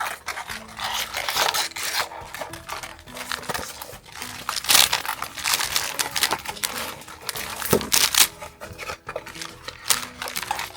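A blind box and its wrapper being torn and crinkled open by hand, in repeated rustling, tearing bursts.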